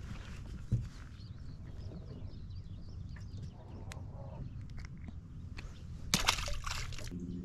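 Open-air lake ambience: a steady low rumble of wind and water with faint bird chirps, broken by a sharp click just under a second in and a brief loud noisy burst about six seconds in.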